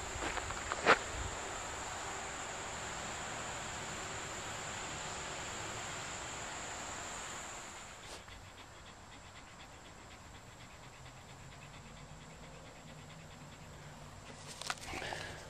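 Steady high insect drone. About halfway through it drops away to a quieter outdoor background with faint, fast insect chirping.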